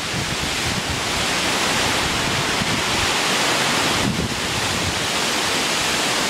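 Steady rush of a waterfall, with wind buffeting the microphone in low, uneven gusts.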